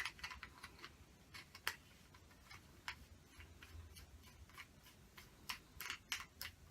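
Faint, irregular metallic clicks and ticks as a lightsaber hilt is screwed by hand onto a chrome quick-release coupler, with a quick run of clicks near the end.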